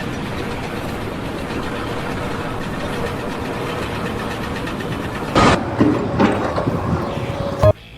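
Steady machine-like rumble with a faint hum, then a few loud knocks or bangs over the last few seconds before the sound cuts off abruptly.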